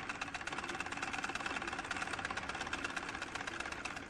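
Treadle sewing machine running at a steady speed, a fast, even mechanical clatter.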